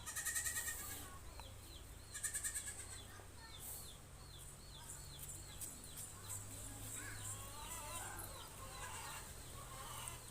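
Goats bleating in wavering, pulsed calls, loudest twice in the first three seconds, with a string of short high chirps repeating about three times a second and a steady low hum underneath.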